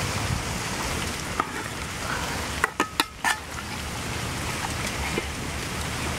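Duck curry boiling in a metal pot over a wood fire, a steady hiss, with a few sharp clinks of a metal spoon against the pot around the middle as it is stirred.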